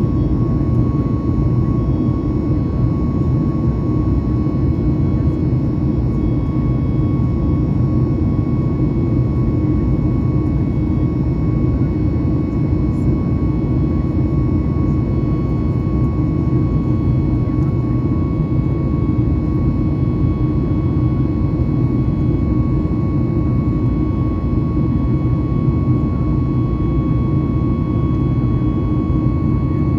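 Cabin noise inside a Boeing 737 MAX 8 climbing after takeoff: a steady deep rumble of airflow and its CFM LEAP-1B turbofans at climb power, with a thin steady whine above it.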